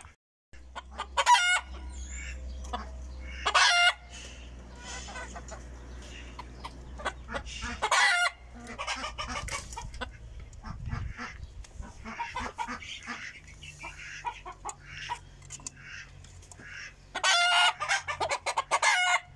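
Flock of Fayoumi-cross hens and roosters clucking, with loud calls breaking out about a second in, near the middle, and a long rooster crow near the end.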